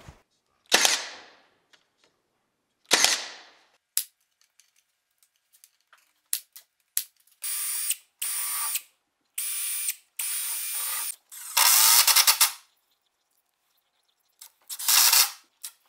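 Two sharp shots from a cordless brad nailer, then a drill whirring in four short runs as pilot holes are drilled. Near the end come two louder, rattling bursts of a Milwaukee impact driver sinking trim screws into the hardwood jamb joint.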